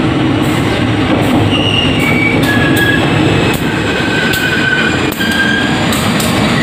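Diesel locomotive running slowly past at close range while being shunted, its engine running, with several short high squeals and clicks from its wheels on the rails.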